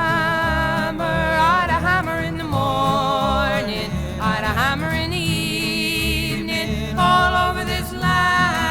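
A solo voice singing long, wavering held notes in a folk song, over guitar accompaniment.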